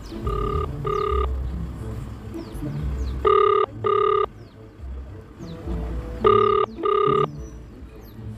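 Phone ringback tone playing through a phone's loudspeaker while an outgoing call goes unanswered. It is a double ring: two short beeps repeated about every three seconds, heard three times.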